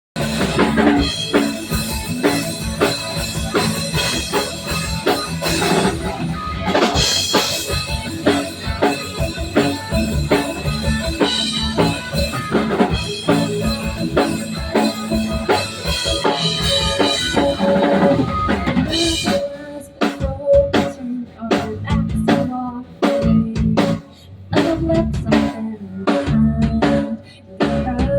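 Instrumental band music led by a drum kit, with bass drum and snare hits under guitar. About two-thirds of the way through it thins out to separate drum hits over a held note.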